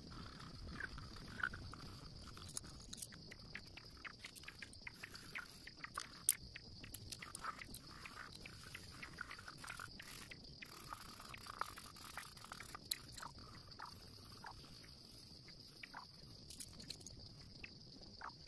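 Pencil scratching and tapping on paper in short, irregular strokes, heard faintly over a steady high hiss.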